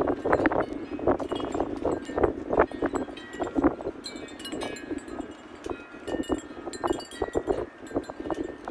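Wind chimes ringing in the breeze, with irregular strikes a few times a second and their tones overlapping as they ring on.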